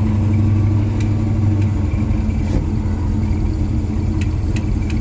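1982 Ford Mustang GT's 5.0 L V8 idling steadily just after a cold start, running on its cold idle.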